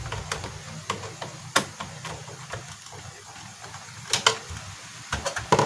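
Scattered sharp clicks and taps of small parts and tools being handled, a few separate ones and then a quick cluster near the end, over a faint low hum.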